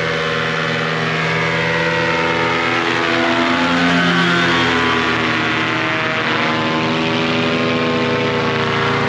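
Small propeller aircraft's engine running loud and steady as it flies past low, its pitch slowly sliding up and down.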